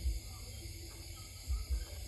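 Steady high hiss of a night insect chorus. Low thumps from the handheld camera are the loudest sounds, with a few faint short calls in between.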